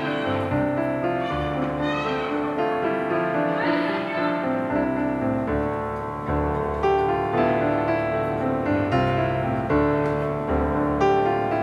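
Background piano music: a slow, gentle instrumental piece of sustained notes and chords.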